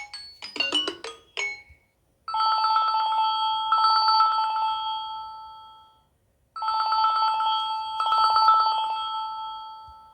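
A Samsung Galaxy ringtone in the style of a classic telephone ring: a fast-trilling two-tone electronic ring, sounded twice for about three and a half seconds each with a short pause between, each ring fading away at its end. Before it, the last few notes of a different, melodic ringtone.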